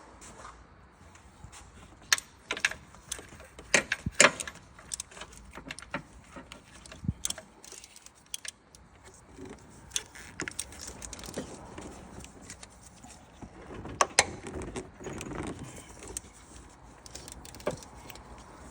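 Metal hand tools and parts clinking and rattling in sporadic sharp clicks as engine bolts are worked loose. The clicks come thickest a couple of seconds in and again about three-quarters of the way through.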